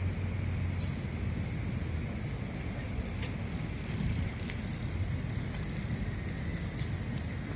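Steady low rumble of distant road traffic, with a few faint ticks.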